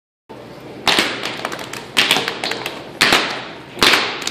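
Children stamping their feet on a tile floor in a steady beat, four loud slaps about a second apart with lighter taps between.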